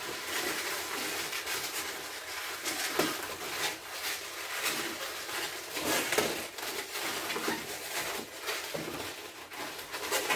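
Latex twisting balloons being twisted, knotted and handled by hand: an irregular run of short rubbing and squeaking sounds as scrap balloons are worked onto a balloon crown.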